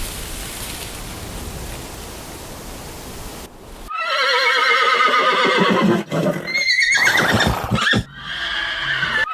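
Steady hiss of ambient noise, then from about four seconds in a horse whinnies loudly three times in a row, each call wavering and falling in pitch.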